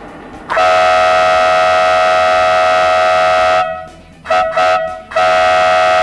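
Trigger Horns EVAC2 dual-trumpet air horn, driven by its 12-volt compressor, sounding a loud two-tone blast. It gives one long blast of about three seconds, two short toots, then another blast of about a second.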